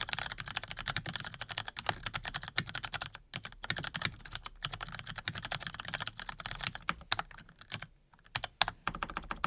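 Mechanical keyboard with lubed Cherry MX Brown tactile switches (Razer BlackWidow V3 Pro) being typed on fast and continuously. The keystrokes thin out to a few separate clicks over the last two seconds and stop at the end.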